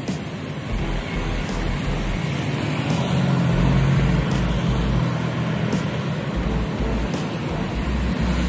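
Road traffic on a city street: cars and motorbikes passing, with a louder low engine hum swelling about three seconds in and easing off after five.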